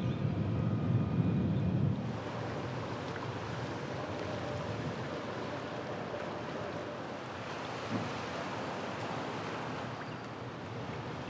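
Wind rumbling on the microphone, heaviest in the first two seconds, over a steady rush of wind and water.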